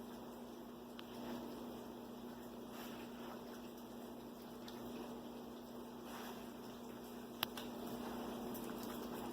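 Faint rustling of a dog nosing through a fabric snuffle-style activity mat for treats, over a steady electrical hum, with one sharp click near the end.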